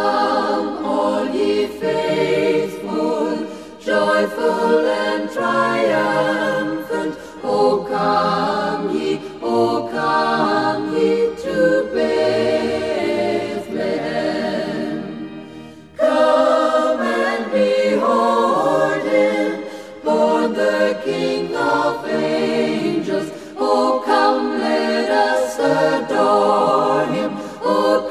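A choir singing a Christmas carol in sustained phrases, with a short break about halfway through before the next phrase comes in louder.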